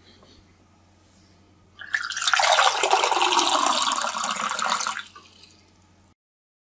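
Water running from the tap of a 5-litre glass dispenser jar (IKEA Vardagen) into a drinking glass, starting about two seconds in and stopping about three seconds later.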